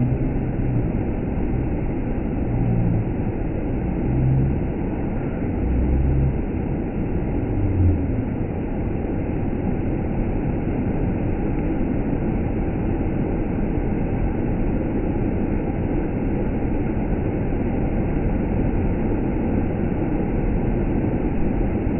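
Waterfall's water rushing in a steady, loud noise, heavy in the low end, with a few brief low sounds over it in the first eight seconds.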